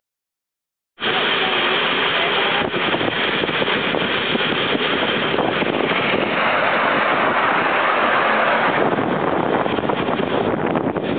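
Riding a miniature railway train: a loud, steady rushing noise of the moving train mixed with wind on the microphone, starting abruptly about a second in after dead silence.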